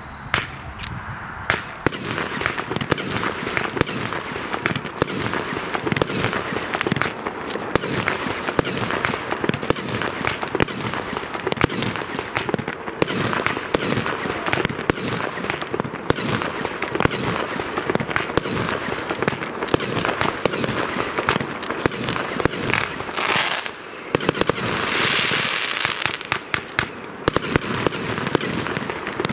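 Geisha Event Immortal Gold, a 100-shot 30 mm fireworks cake, firing in an unbroken rapid run of shot launches and bursts over steady crackling. About 25 seconds in, a louder stretch of hiss rises over the shots.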